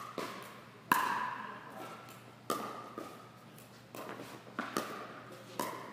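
Pickleball paddles striking the plastic ball in a rally: a series of sharp pops at uneven gaps of roughly half a second to a second and a half, each with a brief ring, the loudest about a second in.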